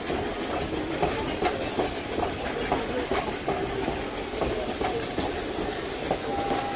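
Steam-hauled passenger train rolling along the track, heard from aboard a coach: a steady rumble with the wheels clicking and clattering over the rail joints.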